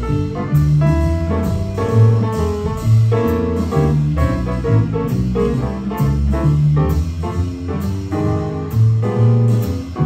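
Jazz piano trio playing: upright piano chords over a plucked double bass line, with steady, evenly spaced cymbal strokes from the drum kit.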